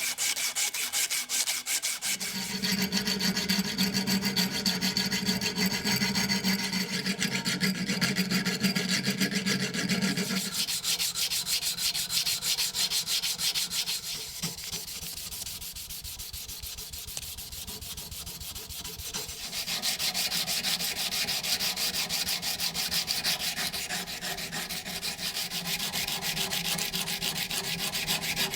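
Walnut knife scales being sanded, a dense, even scraping of abrasive on wood. It drops quieter for several seconds midway, then picks up again.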